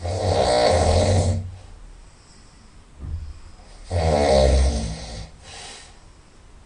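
A person snoring very loudly through the nose. Two long rattling snores come about four seconds apart, with softer breaths between them.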